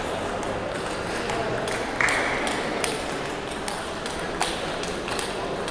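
Table tennis rally: the ball clicking sharply off rackets and table every half second to a second. A short, louder burst of noise comes about two seconds in.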